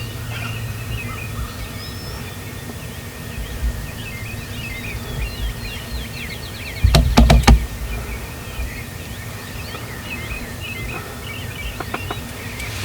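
Songbirds chirping and trilling continuously over a steady low outdoor hum. A brief cluster of sharp, loud knocks comes about seven seconds in.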